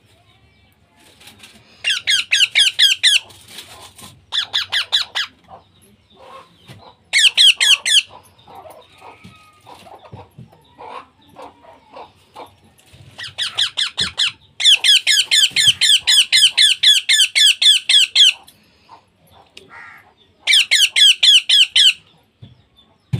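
Baby parrot giving rapid, pulsing begging squawks, many calls a second, in six bursts of about one to four seconds each, the longest about two thirds of the way through: the food-begging call of a chick being hand fed.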